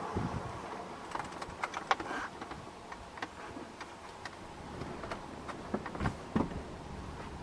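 Faint, irregular clicks and ticks, a few a second, over quiet outdoor background noise.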